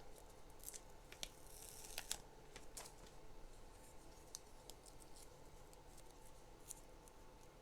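Faint little clicks and a brief soft rip as a sticker is peeled from a Lego sticker sheet and handled, over a low room hum.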